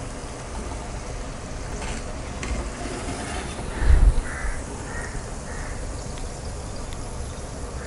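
Hot oil in a deep-frying kadai sizzling steadily as fried paniyaram are lifted out on a perforated steel slotted spoon to drain. There is a single low thump about halfway through. Around the same time a crow caws four times in the background.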